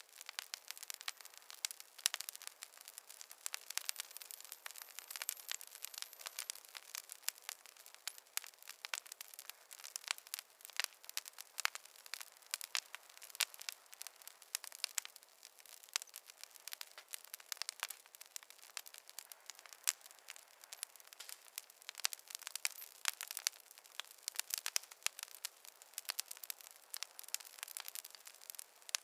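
Fire crackling in a fireplace: many irregular sharp snaps and pops over a faint hiss, with no low rumble.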